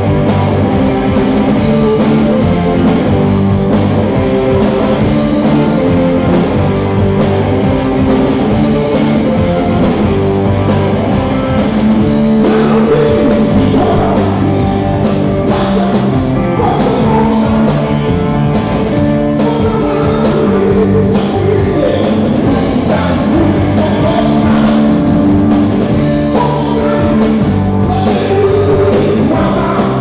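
Blues-rock band playing live, electric guitars and drums under a male singer's vocals.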